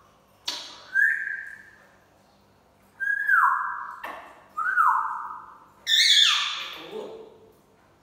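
African grey parrot whistling: a short call rising in pitch, two calls sliding downward, then a harsher, squawk-like call.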